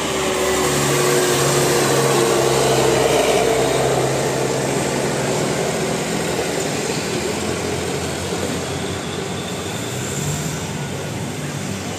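A large road vehicle passing close by: its engine and road noise swell to a peak a few seconds in, then slowly fade.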